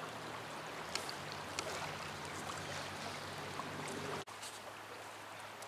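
Shallow river water running steadily around a wader's legs, with a few faint clicks. About four seconds in it drops suddenly to a quieter rush.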